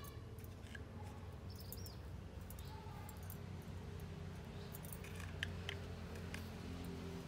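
Faint small clicks of metal tweezers picking ticks from a dog's fur and tapping into a plastic cup, with a couple of sharper clicks about five seconds in, over a low steady hum.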